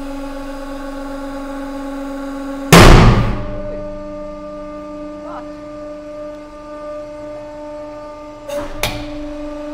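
Hydraulic press pump running with a steady hum as it loads an 80 mm steel ball bearing onto AR500 armour plate. About three seconds in the ball gives way under the load with one very loud bang that rings out for about half a second. Two sharp clicks follow near the end.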